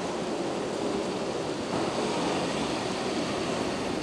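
Steady rushing noise of heavy rain, with a Keihan 8000 series train rolling slowly into the platform.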